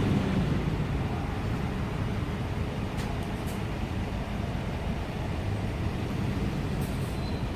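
Steady low rumble of outdoor road or vehicle noise, with a few faint ticks.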